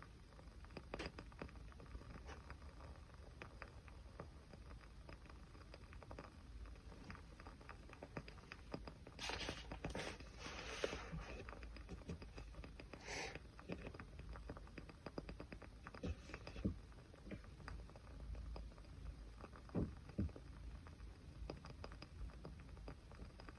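Small wood fire crackling, with steady faint ticks and pops and a few louder bursts of crackling about halfway through.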